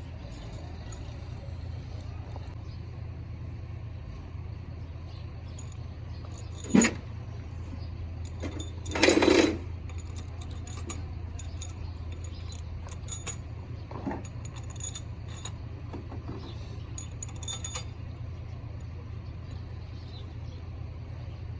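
Light metallic clicks and clinks of tools and engine parts being handled over a steady low hum, with a sharp knock about seven seconds in and a louder, half-second noisy burst around nine seconds.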